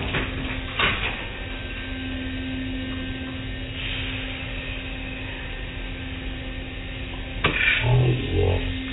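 Automatic tunnel car wash machinery running with a steady hum, heard muffled from inside a car, with a few rushes of water spray against the car, the loudest near the end. Music with bass and guitar starts just before the end.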